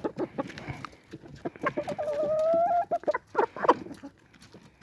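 Backyard chickens clucking in short bursts, with one drawn-out, slightly rising call lasting under a second about two seconds in.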